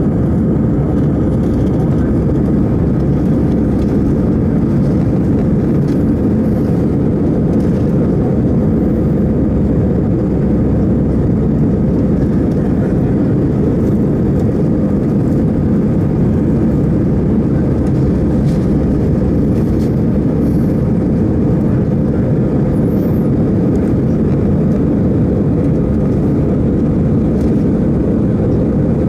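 Steady low cabin noise inside an Airbus A319 climbing out after takeoff: the jet engines and rushing airflow heard through the fuselage as one even, unbroken drone.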